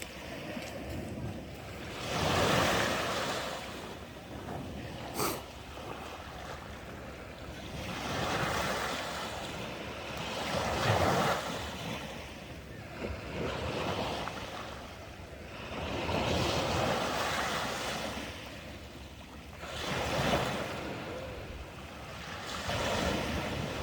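Ocean waves breaking and washing up the shore, the surf swelling and falling back about every 3 to 5 seconds. There is one short click about five seconds in.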